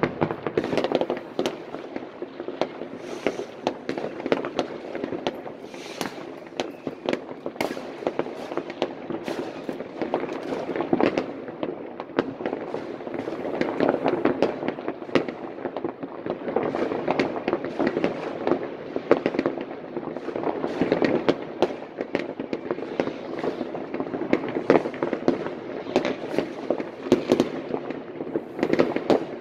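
Many fireworks and firecrackers going off across a town at once: a constant din of distant bangs and crackling, with sharp individual reports scattered densely throughout.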